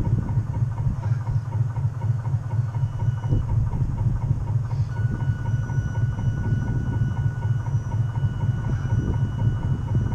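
Radio-controlled model boat's onboard drive running steadily, a fast low throb heard from on deck. A thin high whine joins about halfway through for a few seconds.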